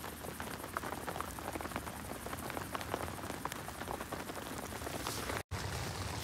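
Rain pattering steadily: a hiss of many small drops ticking irregularly.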